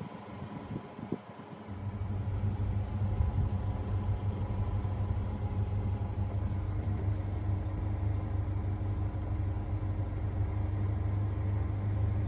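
Vehicle engine idling: a steady low rumble that comes in about two seconds in. A few light knocks come before it.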